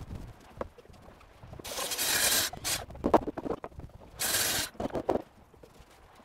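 Knocks and footsteps on wooden deck boards, broken by two bursts of loud hissing noise, one about a second long near the start and a shorter one a little past the middle.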